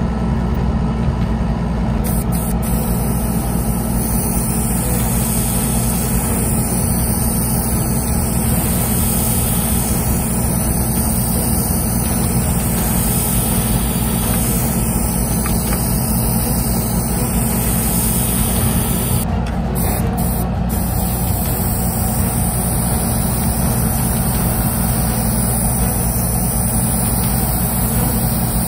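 Airbrush hissing steadily as it sprays paint, over a steady low motor hum; the hiss sets in about two seconds in and cuts out briefly twice about two-thirds of the way through.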